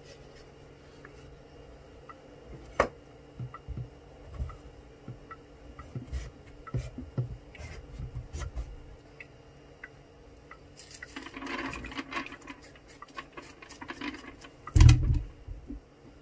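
Kitchen knife cutting peeled green papaya on a wooden chopping board, heard as a run of scattered knocks and taps, then a few seconds of scraping as the seeds are scooped out, and one heavy thump near the end.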